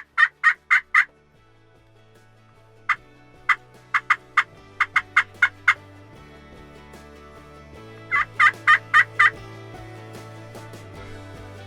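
Wild turkey gobbling in rapid rattling runs: one at the start, a run of sharper, clipped notes in the middle and another gobble near the end. Background music fades in underneath and grows louder.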